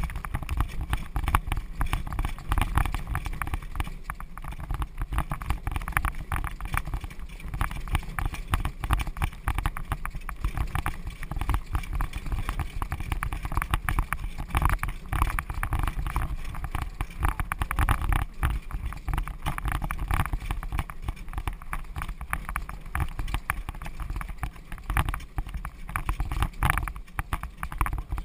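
Horse-drawn driving carriage moving at a trot: wheels and harness rattling with irregular knocks, and hoofbeats on the dirt track, over a steady low rumble.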